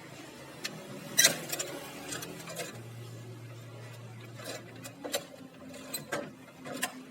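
Canon imageRUNNER photocopier humming, with a series of sharp mechanical clicks and knocks, the loudest a little over a second in. A low motor drone starts about three seconds in and stops about two seconds later.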